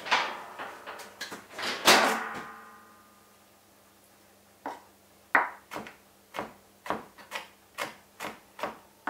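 A knock that rings briefly about two seconds in. From about halfway, a kitchen knife chops garlic on a plastic cutting board in steady sharp strokes, about two a second.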